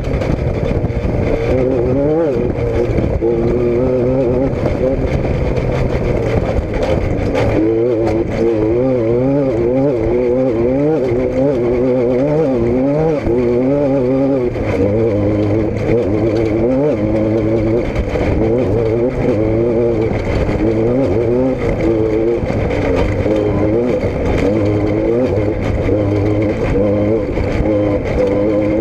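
A motor vehicle's engine running, its pitch rising and falling over and over, about twice a second, over a steady low drone.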